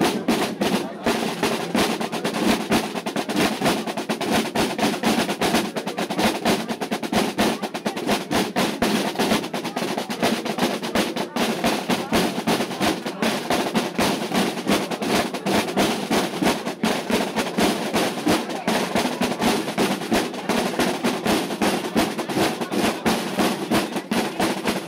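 A corps of field drums playing together, a fast, unbroken run of rapid stick strokes.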